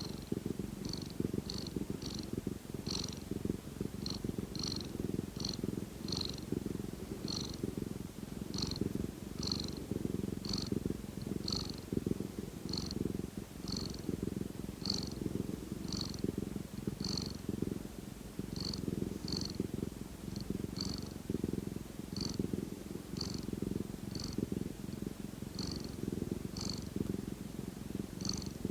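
Domestic cat purring steadily, a low pulsing rumble, with short faint high ticks about once or twice a second.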